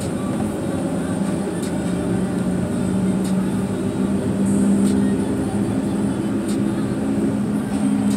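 Car engine and road noise heard from inside a moving car: a steady low drone over a constant rush.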